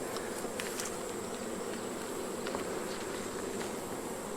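Honey bees buzzing in a steady hum around an open hive, with a few light clicks.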